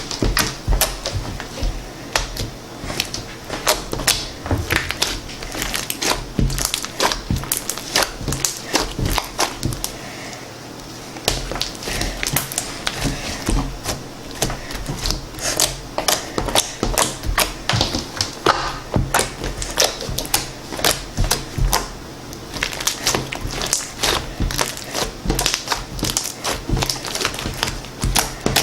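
Homemade slime squeezed and pressed by hand, giving dense, irregular clicking and popping, with a short lull about ten seconds in.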